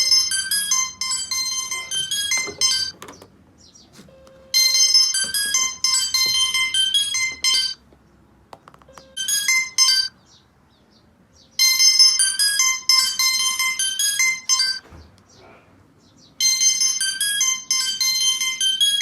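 Mobile phone ringtone: a bright, high-pitched electronic melody played in phrases of about three seconds, repeating with short pauses between.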